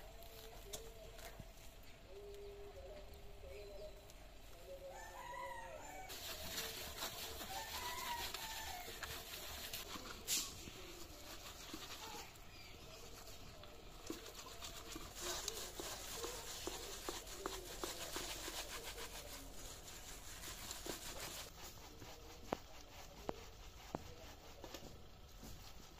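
Ripe palmyra palm (tal) fruit being rubbed by hand against perforated steel colanders to work out the pulp: a dense, scratchy rubbing that starts about six seconds in and eases off near the end. In the first few seconds a chicken calls a few times.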